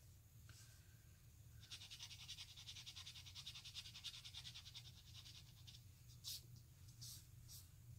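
Faint scratching of a fine fountain pen nib moving quickly back and forth across paper, a rapid run of short strokes from about two seconds in, then a few single scratches near the end, over a low steady hum.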